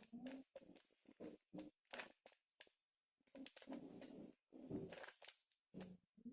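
Rubik's Cube being turned by hand: quick, faint plastic clicks and scrapes in short bursts with brief pauses between moves.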